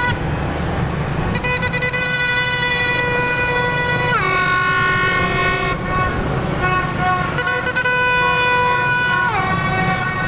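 Horns blown in long held blasts over the low rumble of motorbike traffic. The tone drops in pitch about four seconds in and again near the end.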